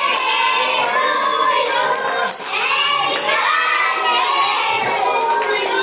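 A group of children singing a birthday song together, with hands clapping along.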